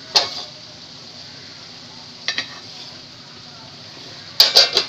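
Wooden spoon stirring bitter gourd, potatoes and lentils in a metal pot of simmering water, over a steady low hiss. There is a clink just after the start, two light knocks about halfway, and a quick run of sharp knocks against the pot near the end.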